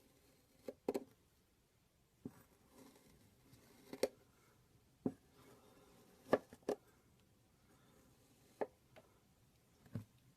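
Kinetic sand being cut with a blade: a string of soft, short taps and crunches, irregularly spaced at roughly one a second, as the blade slices through the packed sand and meets the tray beneath.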